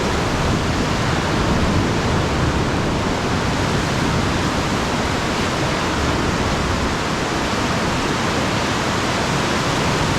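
Ocean surf rushing in through the rocks of a sea cave below, a loud, steady wash of water noise.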